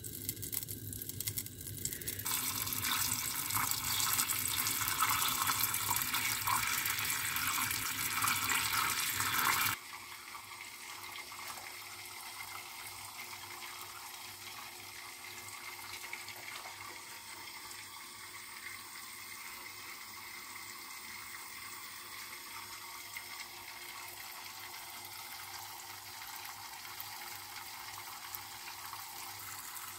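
Melted butter bubbling and crackling in a small stainless steel saucepan on a gas hob. It grows loud about two seconds in and cuts off suddenly near ten seconds. After that comes a steady, quieter hiss of the gas burner under an empty glass baking dish.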